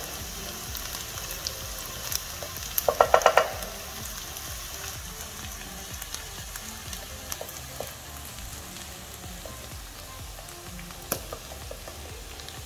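Mutton and onions sizzling as they fry in oil, with a wooden spatula scraping and pressing a beef stock cube against the pan to crush it. A brief, louder rapid rattle about three seconds in.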